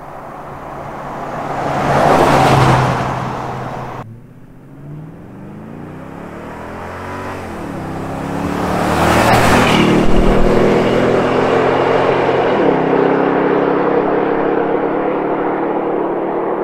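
Toyota Tundra 5.7L V8 with an MPI Performance Series aggressive aftermarket exhaust driving by: one pass swells and fades about two seconds in, then after a cut the exhaust note climbs in pitch and steps down twice as the truck accelerates through the gears, loudest as it passes at about nine to ten seconds, and then holds a steady drone.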